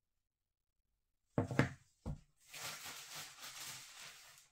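Groceries being handled on a table: two knocks as items are set down about a second and a half in, then about two seconds of rustling packaging.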